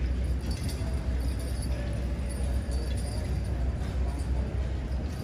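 Light clinking and jingling of a draft-horse team's harness chains and hardware over a steady low hum.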